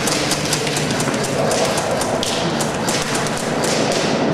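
Airsoft guns firing: a rapid, irregular string of sharp shots.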